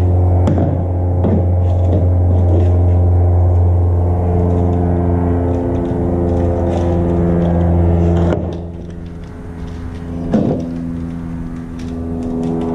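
Background music of sustained low chords over a deep drone; the chords change about four and eight seconds in, and the drone drops away about eight seconds in. A few faint clicks sit underneath.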